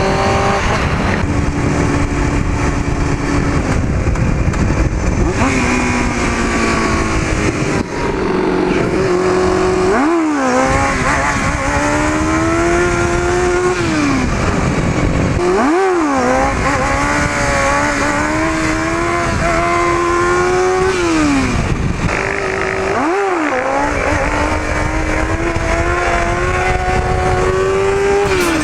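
Sport bike engine running hard under the rider, revving up and down, with three sharp dips and recoveries in engine speed. Heavy wind noise on the microphone.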